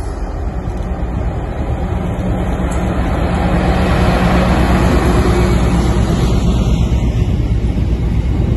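Class 60 diesel-electric freight locomotive running under power as it approaches and passes close by, its low engine hum swelling to a peak about halfway through as it goes past. The wagons behind then roll by on the rails.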